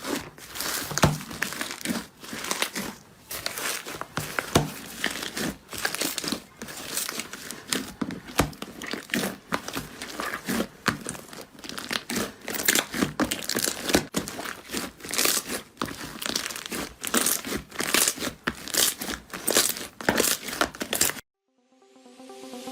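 Slime being squeezed and pressed by hand, giving dense, irregular crackling and popping. It cuts off suddenly near the end.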